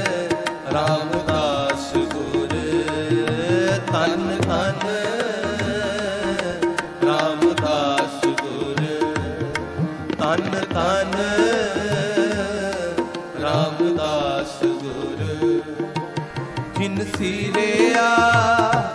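Sikh shabad kirtan music: tabla strokes under a melodic line that bends up and down in pitch.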